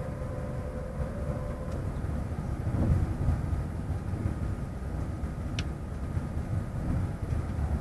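ICE high-speed train running at speed, heard from inside the passenger car: a steady low rumble of wheels and running gear that swells briefly about three seconds in.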